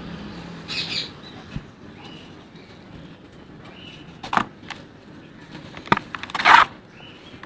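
Dry clumps of red dirt and sand-cement being squeezed and crumbled by hand in a bucket of loose red powder: gritty rustling and crunching, with a few sharp crumbles. The loudest crumble comes about six and a half seconds in.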